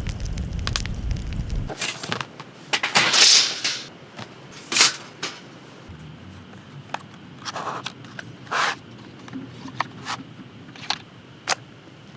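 Thin steel parts of a Picogrill folding fire pit clinking and scraping as it is handled: a string of sharp separate clicks and short scrapes, the loudest scrape about three seconds in. A low rumble runs under the first second and a half.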